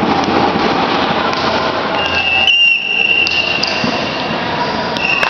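Echoing sports-hall din: a dense wash of crowd noise and activity from around the hall, with a few sharp knocks and a steady high-pitched tone that comes in about two seconds in.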